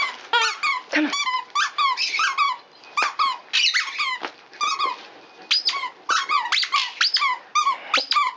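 Squeaker inside a plush dog toy squeaking in quick runs of short squeaks as dogs tug on it, with brief pauses.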